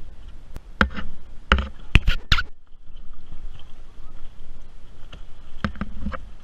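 Water splashing and slapping as an inflatable wingfoil wing is grabbed by its handle and hauled dripping out of the water beside the board: a quick cluster of sharp splashes and knocks about a second in, then a couple more near the end, over a low wind rumble on the microphone.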